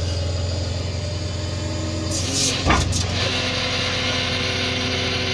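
Peterbilt 337 tow truck's diesel engine idling steadily with the PTO engaged, a low hum with steady tones above it. A single short clank comes a little past halfway.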